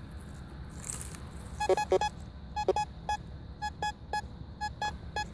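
Raptor VLF metal detector sounding short target beeps as its search coil sweeps over a buried metal object. A few louder, lower beeps come about two seconds in, followed by a run of shorter, higher beeps at about three a second.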